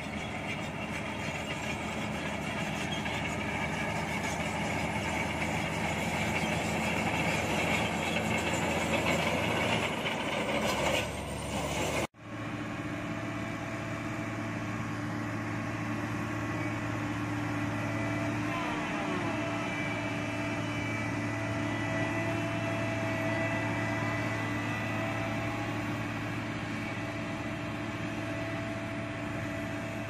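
SHANTUI crawler bulldozer's diesel engine running as it works a pile of soil. About twelve seconds in the sound cuts off abruptly and gives way to a single-drum road roller's diesel engine running with a steady low hum.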